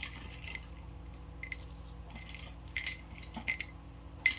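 Pieces of costume jewelry clinking and rattling against each other as they are handled, a few light metallic chinks with the loudest near the end.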